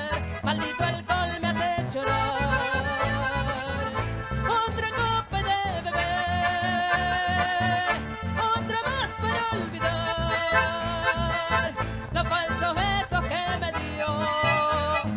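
Live folk band playing through a PA: accordion carries the melody over guitar and a steady bass beat.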